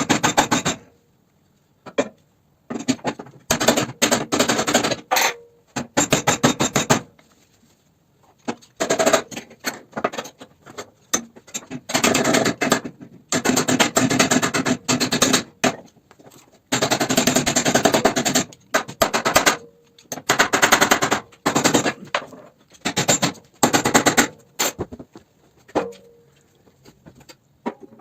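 Pneumatic impact wrench hammering in repeated bursts of one to three seconds with short pauses, typical of undoing bolts during the front subframe and frame-rail work on a Toyota Camry. A faint whine trails some bursts as the tool spins free.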